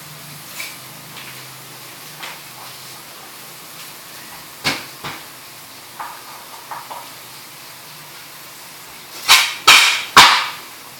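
Metal spatula scraping and knocking against a metal wok as fish simmering in sauce is stirred, a few light scrapes, then three loud sharp knocks in quick succession near the end. A faint steady simmering hiss runs underneath.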